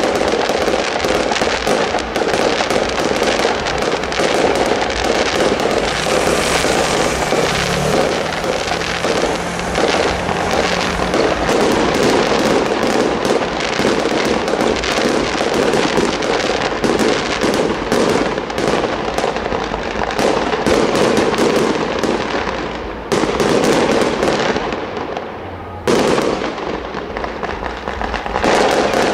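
Fireworks display: a continuous barrage of rapid bangs and crackling from aerial bursts, with two sudden louder volleys near the end.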